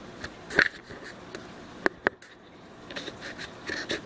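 Faint steady water noise of a running reef aquarium, with several sharp clicks scattered through it.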